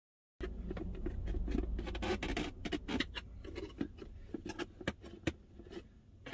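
Handling noise: a close run of light clicks, taps and scratchy rustling as small objects are moved about, with a low rumble in the first two seconds. The sound cuts in abruptly about half a second in.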